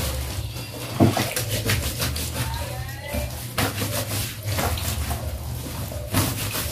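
Clothes being hand-scrubbed in a plastic basin of soapy water: repeated rubbing and squelching strokes of wet fabric with sloshing water, over a steady low hum.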